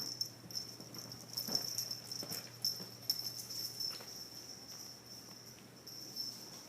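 Insect chirping, a continuous high pulsing trill, with a few soft knocks in the first few seconds.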